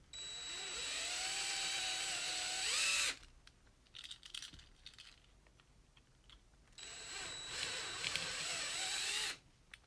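Cordless drill with a 9/64-inch bit drilling out the rivets of a Hot Wheels die-cast car. There are two runs of about three seconds each. The whine rises in pitch near the end of the first run, and faint clicks fall in the pause between the runs.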